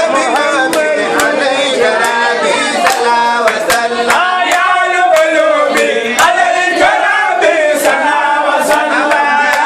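A group of men chanting and singing together, with hand claps keeping a beat of about two a second.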